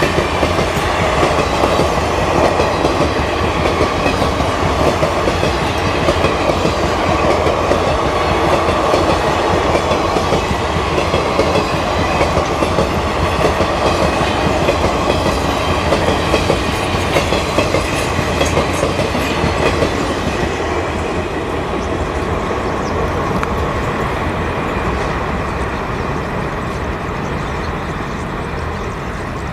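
Indian Railways passenger train of LHB coaches running past, a steady loud rumble with wheels clattering over the rail joints. The sound thins and fades over the last several seconds as the train draws away.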